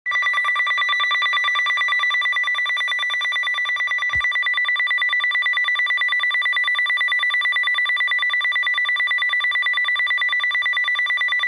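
Weather radio alert alarm: a loud, rapidly pulsing high-pitched electronic beep that starts abruptly and cuts off after about eleven seconds, announcing an incoming warning broadcast. A faint click is heard about four seconds in.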